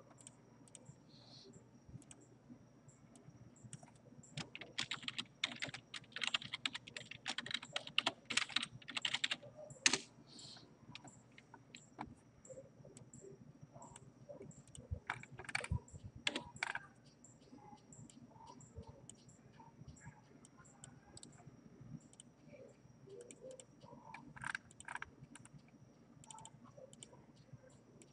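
Typing on a computer keyboard in quick bursts, with scattered clicks, likely of a mouse. A faint steady high-pitched whine runs underneath.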